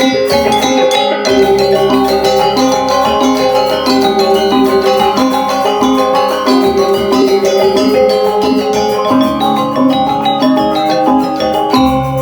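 Balinese gamelan music for the Rejang dance: bronze metallophones and gongs struck in fast, steady, interlocking patterns over ringing tones.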